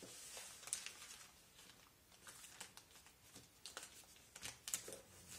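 Faint rustling and crinkling of several sheets of newspaper being folded and pressed flat by hand, in short irregular rustles.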